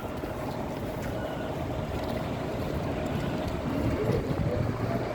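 Busy city ambience: a steady low rumble with a faint steady hum, and indistinct voices rising near the end.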